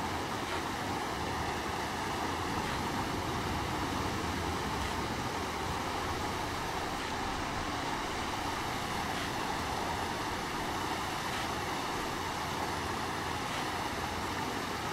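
Shallow stream of muddy water rushing steadily over sand, eroding the sandbank as it runs into the lake.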